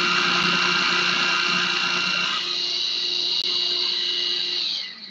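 Food processor motor running steadily with a whine, blending thick basil pesto that now circles freely around the bowl. Its whine shifts a little about halfway through, and near the end the motor is switched off and winds down.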